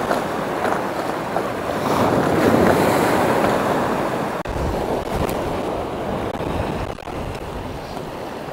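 Sea waves breaking and washing on the shore at high tide, swelling a couple of seconds in and then easing off, with wind buffeting the microphone.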